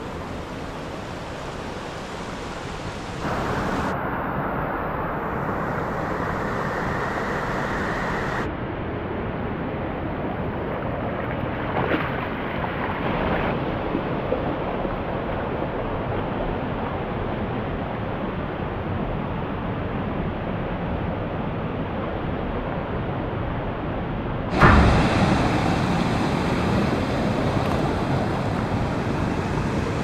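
Mountain creek running over rocks and through shallow pools: a steady rush of water. It shifts abruptly in loudness and tone about 3 s, 8 s and 25 s in, getting louder at the first and last of these.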